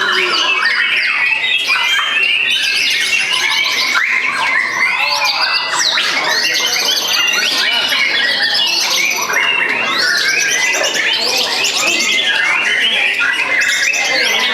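Several white-rumped shamas singing at once in a dense, continuous tangle of fast whistles, trills and harsh chattering notes, as birds competing against each other on contest poles.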